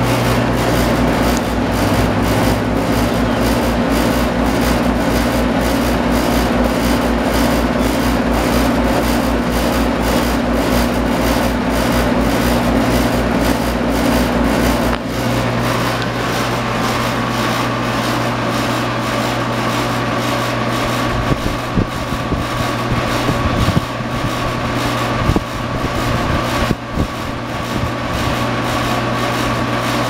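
2019 Rheem central air-conditioner condenser running: a steady hum with the outdoor fan going, a fast low pulsing through the first half. About halfway through the pulsing stops and a steady higher whine comes in.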